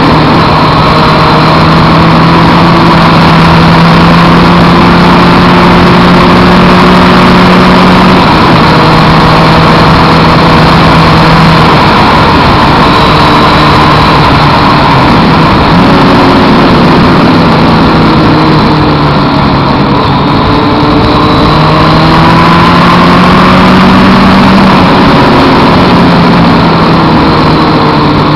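Suzuki Hayabusa inline-four motorcycle engine running at road speed, heard from a camera on the bike under a loud, steady rush of wind and road noise. The engine pitch holds steady, then steps down and slides up and down a few times midway and later on as the rider works the throttle and gears through the bends.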